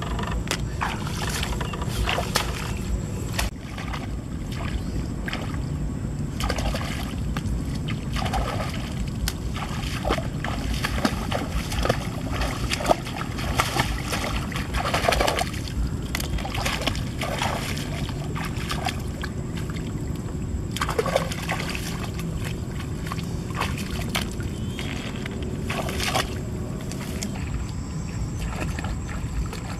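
Hands sloshing and splashing in shallow water among wet grass, with irregular splashes and rustles. A steady low rumble runs underneath.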